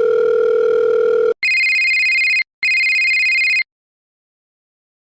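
Telephone sound effect: a steady dial tone, then two electronic rings of about a second each with a short gap between them.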